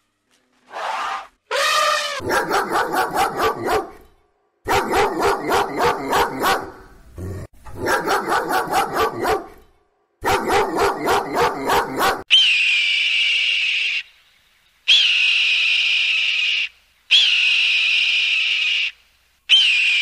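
Two short gliding calls, then two small dogs howling in rapid yipping pulses, about five a second, in several runs over about ten seconds. Then a hawk screaming: four long high screeches, each opening with a quick upward flick.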